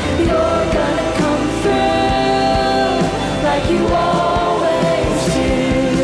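Live worship music: a woman singing a slow song in long held notes, with strummed acoustic guitar accompaniment.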